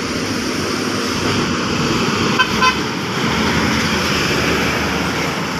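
A DLTB Co Ankai coach and then a box truck driving uphill close past, their engines and tyres making a steady, loud noise. Two quick horn toots come about two and a half seconds in.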